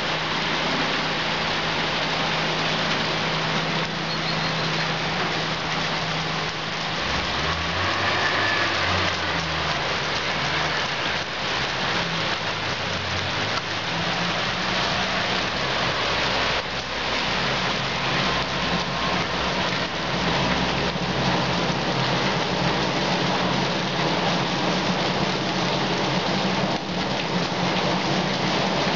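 Heavy rain falling steadily on pavement, puddles and roofs, an even, dense hiss, with a low steady hum underneath.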